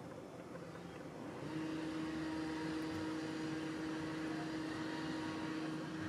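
A steady, even-pitched machine hum comes in about a second and a half in and cuts off suddenly near the end.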